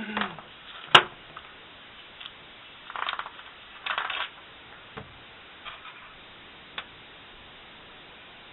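Small metal parts and tools handled on a tabletop: one sharp click about a second in, then two brief rustles and a few light clicks, ending after about seven seconds.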